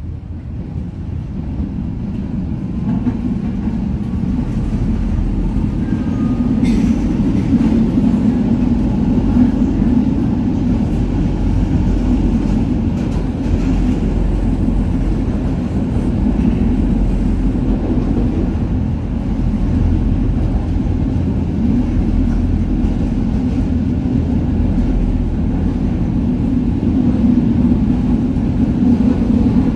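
Konstal tram heard from inside the passenger saloon: motor and wheels running on the rails, growing louder over the first several seconds, then a steady rumble. There is one brief click about seven seconds in.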